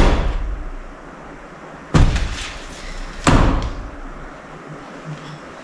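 Heavy clunks of metal transmission parts being handled: two sharp hits about two and three seconds in, each ringing off for about a second.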